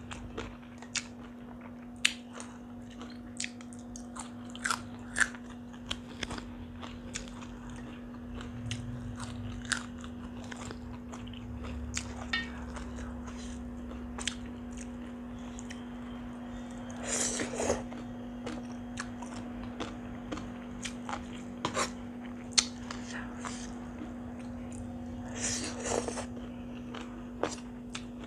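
Close-up mouth sounds of a person eating tam sua, spicy papaya salad with rice noodles and raw vegetables: wet chewing with many short sharp smacks and clicks, and two longer crunchy bites, about 17 and 26 seconds in. A steady low electrical hum runs underneath.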